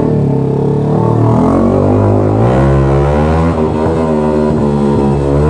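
Yamaha R15 V3's 155 cc single-cylinder engine running loud through an SC Project aftermarket exhaust as the bike pulls away. Its pitch rises about halfway through and wavers as the throttle changes.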